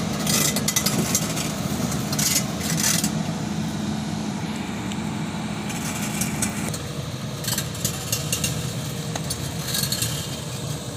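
Volvo crawler excavator's diesel engine running steadily, its note dropping slightly about seven seconds in, with spells of metallic clinking and rattling from the machine as it moves its boom, bucket and tracks.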